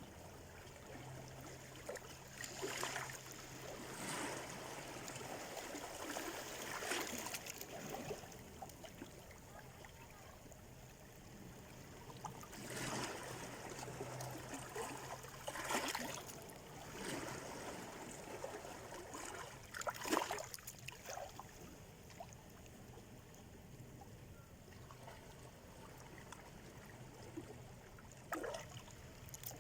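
Small Black Sea waves washing in against the shore, with irregular splashing surges every few seconds over a steady wash of water, the strongest about two-thirds of the way through. A faint low steady hum comes and goes beneath it.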